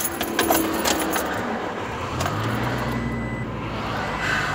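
Keys jangling with a few sharp clicks, then a car engine's steady low hum coming in about two seconds in, heard from inside the cabin.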